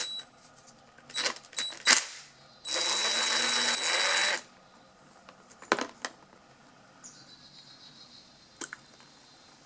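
Small metal clicks and knocks from hand tools and carburetor parts as the float bowl is taken off a small engine's carburetor. About three seconds in comes the loudest sound, a hiss lasting nearly two seconds with a thin whistle in it.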